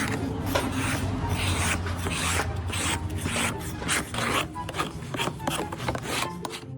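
Repeated rasping scrape strokes, about two to three a second, over faint background music.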